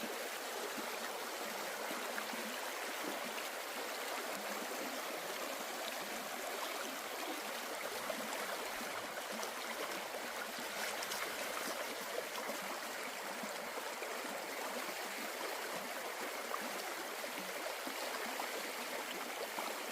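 Forest stream flowing over rocks, a steady rushing and gurgling of water with small splashes.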